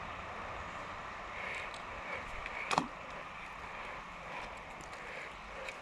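Creek water flowing with a steady rush, and a single sharp click about halfway through.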